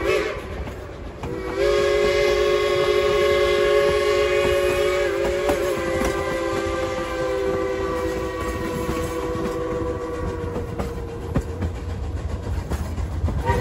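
Chime steam whistle of a K-28 steam locomotive sounding a chord of several notes in long blasts. One blast ends just as the sound begins, a long one runs from about two seconds to five, a second long one follows and slowly tails off, and another starts at the very end. Under it is the steady low rumble of the train running.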